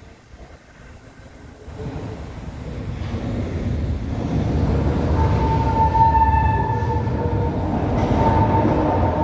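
Stuttgart trams approaching on the rails: a rumble swells up from quiet about two seconds in and grows loud, and steady high-pitched tones join in from about halfway.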